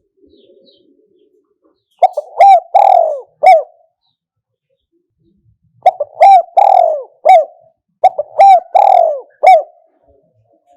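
Spotted dove cooing: three phrases of four or five coos each, about two, six and eight seconds in, each phrase ending with a short clipped note. This is the 'kuk-hoi' style of call played as a decoy song to draw wild doves.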